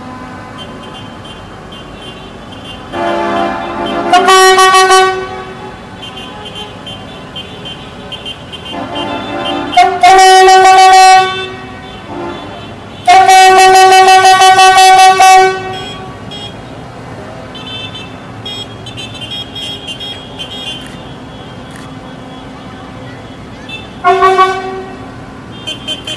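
A vehicle horn sounding in four loud blasts, each held on one steady pitch, the longest about two seconds, over the steady running of engines.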